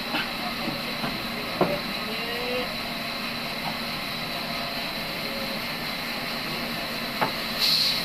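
Large band sawmill running with a steady drone and a thin whine, while a heavy log is shifted on the saw table, giving two sharp knocks. A short hiss near the end.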